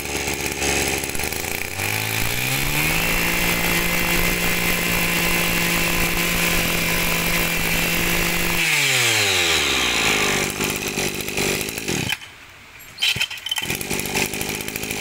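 Mitsubishi TL26 brush cutter's 26cc two-stroke engine idling, then revved up to a high steady speed about two seconds in and held there for several seconds. It drops back to idle and cuts out about twelve seconds in. Short rattling pulls of the starter cord come near the end.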